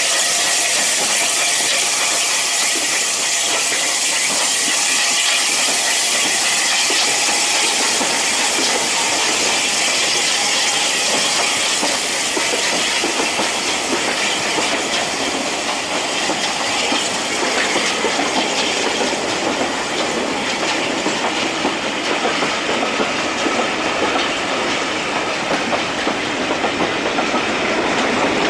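Southern Railway Battle of Britain class steam locomotive No. 34072 pulling away with hissing steam, then its coaches rolling past with a steady clickety-clack of wheels on the rails. The high hiss thins out in the last third as the coaches go by.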